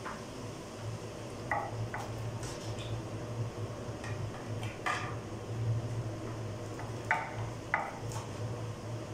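Scattered metal clinks of pots and dishes being handled, about six sharp knocks at uneven intervals, over a steady low hum.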